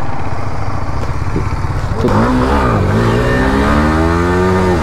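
Racing motorcycle engine accelerating hard over a rush of wind noise: the engine note comes up about two seconds in and climbs steadily, then drops near the end as the bike shifts up and starts climbing again.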